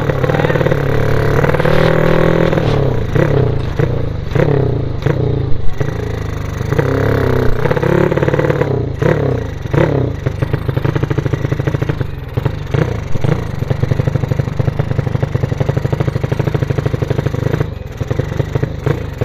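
Motorized bicycle ('sleep engine') powered by a small motorcycle engine, heard from the rider's seat. Over the first half the revs rise and fall repeatedly, then the engine runs at steady revs with an even, rapid pulsing beat.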